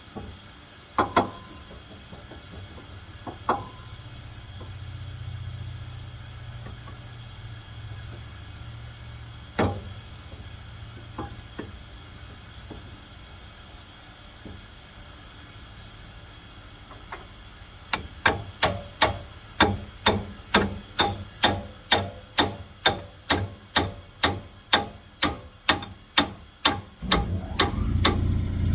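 A few scattered metal clanks, then a steady run of sharp metallic taps, a little over two a second, during work on a sawmill edger's bearing. A low steady hum comes in near the end.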